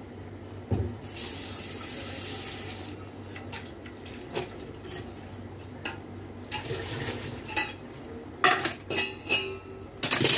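Metal pots and utensils clinking and knocking now and then, with a cluster of clinks near the end. A hiss lasting about two seconds comes in about a second in.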